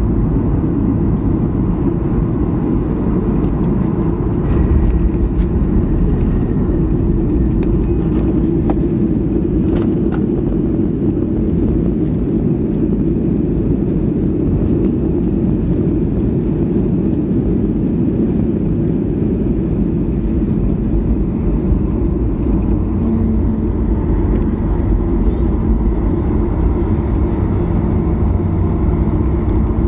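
Steady low rumble of a moving vehicle, with a faint rising whine near the end.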